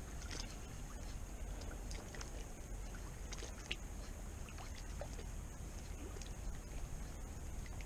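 Small waves lapping and splashing against the shoreline rocks, with scattered faint ticks over a low steady rumble.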